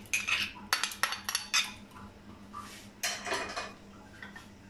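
A metal spoon clinking and scraping against a small glass bowl and an aluminium pressure cooker as a paste is scraped out: a quick run of sharp clinks in the first second and a half, then a short scrape about three seconds in.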